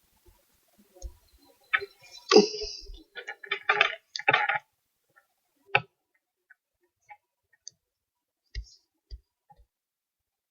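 Irregular clicks and clattering handling noises, bunched together from about two to four and a half seconds in, then a few scattered single clicks.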